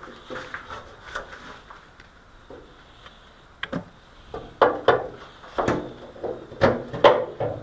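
Irregular sharp knocks and clunks of things being handled, a few faint ones early and about half a dozen loud ones in the second half.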